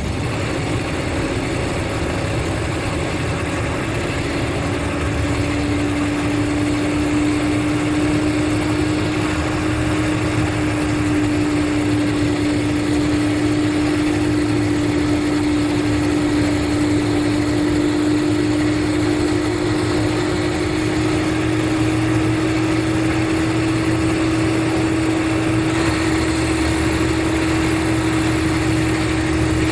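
Mercedes-Benz O500RSD coach engine running steadily, with a strong whine that climbs slowly and evenly in pitch over the low engine rumble.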